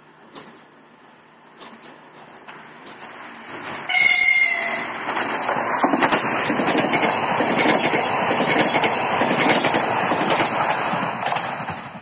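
ES2G Lastochka electric train passing close by at speed. A short horn blast sounds about four seconds in as it arrives, then comes a loud rush of wheels and air with rapid clicking over the rail joints, fading near the end.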